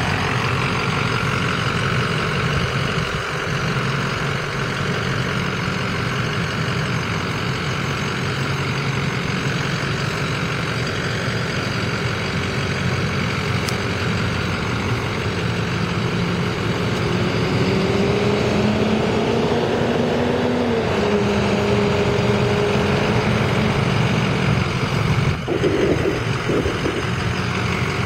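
Ford 6.0L Power Stroke V8 turbo-diesel in a 2005 F-350, idling steadily. Its pitch rises slowly and drops back about two-thirds of the way through, and there is a brief bump near the end.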